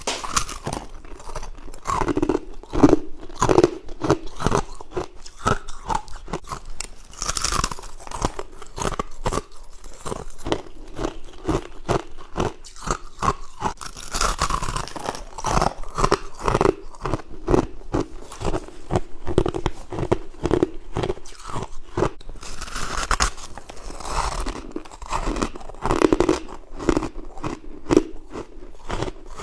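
A person biting and chewing mouthfuls of frost, a dense run of rapid, irregular crunches throughout.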